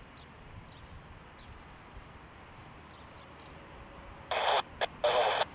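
Faint, steady background rumble and hiss, then about four seconds in two short loud bursts of airband scanner static. The bursts are cut off at the top like the tower radio transmissions around them.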